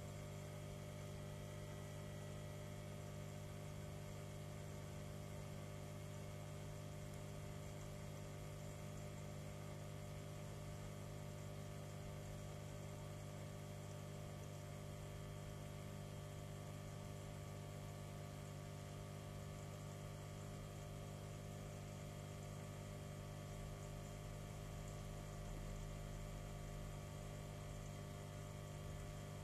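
Steady low electrical hum of a homemade protein skimmer's pump running on a small saltwater aquarium, with a faint even hiss.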